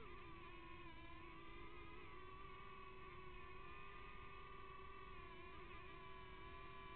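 Hubsan X4 107C micro quadcopter's motors and propellers whining steadily, heard up close through its own onboard camera, the pitch wavering slightly as the throttle changes.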